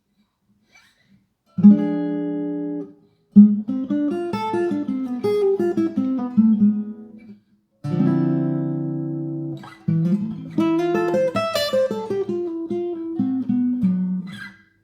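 Solo acoustic guitar played fingerstyle: a chord struck and left to ring, then a picked run of single notes, then a second chord and a second run that climbs and steps back down.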